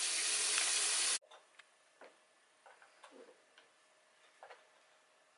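A steady hiss that cuts off suddenly about a second in, followed by faint, scattered clicks and light knocks.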